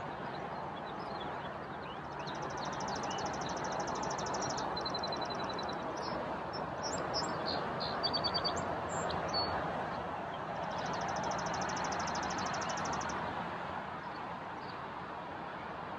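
Songbirds singing in a spring woodland edge: a long, rapid, even high trill, a shorter lower trill, scattered chirps, then the long trill again. A steady outdoor hiss lies underneath.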